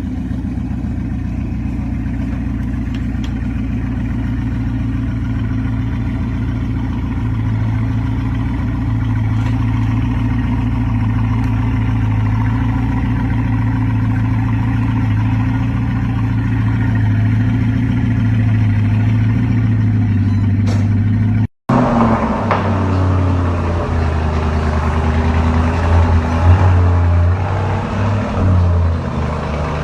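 Car engines: a sports car engine running with a deep, steady rumble, then after a sudden cut about 21 seconds in, a second car's engine running unevenly and rising and falling.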